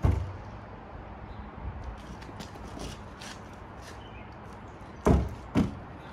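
Heavy thumps of a cast iron drain pipe being worked loose inside an opened wall: one right at the start, then two louder ones about half a second apart near the end.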